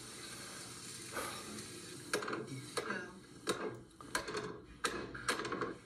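Kitchen clatter of cookware on a stovetop: a steady hiss, then from about two seconds in a series of sharp clinks and knocks, roughly two a second.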